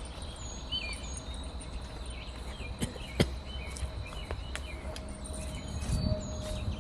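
Small birds chirping now and then over a steady, high, thin insect drone and a low background rumble, with two sharp clicks about three seconds in.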